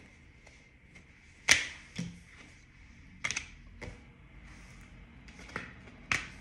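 Tarot cards handled and laid down on a table: about six sharp slaps and clicks, the loudest about a second and a half in.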